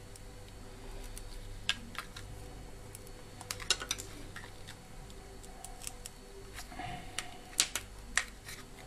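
Cutting pliers biting off pieces of a transformer's moulded plastic support: irregular sharp snaps and clicks as the plastic breaks away, the two loudest near the end.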